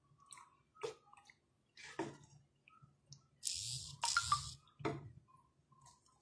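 Wooden spatula knocking and scraping in a frying pan as saucy cheese pasta is scooped onto a plate: a few sharp taps, with a wet, squishing scrape about halfway through.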